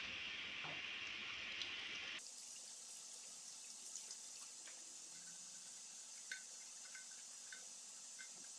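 Tap water running and splashing as a chrome-plated motorcycle part is rinsed over a basin. About two seconds in the sound changes abruptly to a thinner hiss with scattered drips and small ticks.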